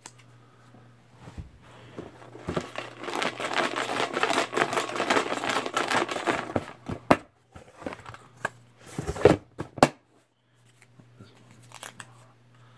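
Rustling and crinkling of paper raffle slips being stirred and handled for several seconds, followed by a few sharp knocks.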